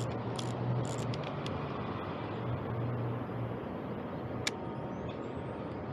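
Steady city traffic hum with a few light ticks early on; about four and a half seconds in, a single sharp click of the Olympus XA's shutter firing with its flash attachment, after which a faint high whine rises as the flash recharges.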